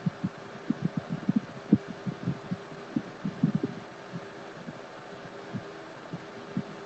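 Soft, irregular low thumps, several a second at times, over a steady low hum and hiss.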